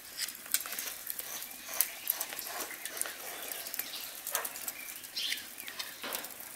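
Knife blade cutting through stacked layers of raw baklava dough along a wooden ruler: a run of small scratchy clicks and rasps.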